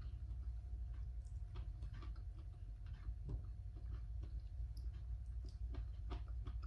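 Someone eating with their fingers: chewing, and fingers picking food off a plate, heard as an irregular scatter of small clicks and ticks. A faint steady hum runs underneath.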